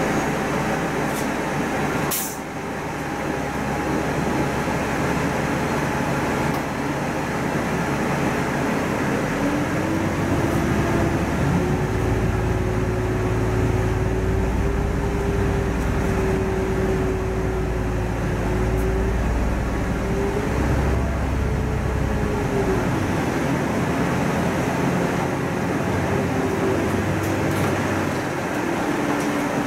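City bus driving, its engine and drivetrain running with a whine that rises about ten seconds in, holds, and falls away after about twelve seconds, with a deeper rumble while it holds. A sharp click about two seconds in.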